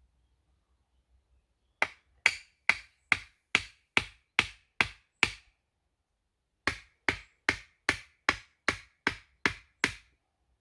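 Sharp, evenly paced knocks of a tool striking wood, a little over two a second, in two runs of about nine strikes with a short pause between them.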